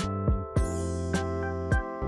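Background music with a steady beat: sustained chords over a low drum thump slightly under twice a second, with a cymbal crash about half a second in.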